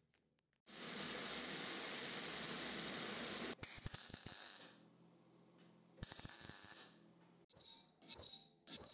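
Electric arc welding crackling steadily for about three seconds, then more quietly, with a second short burst about six seconds in. Near the end, a flat hand file rasps across a steel screw held in a vise in quick strokes, about two a second.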